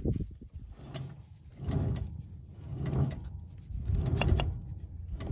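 Drive sprocket and its bearing in the lower drive of a John Deere 567 round baler, spun by hand with the chain off, turning with a rough low rumble that swells each time it is pushed round, about four times. It sounds like dry bearings, a bearing that had been running hot.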